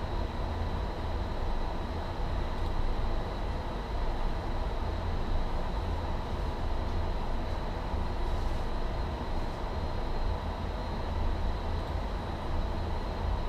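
Steady low rumble and hiss of office ventilation, with a faint, constant high whine over it.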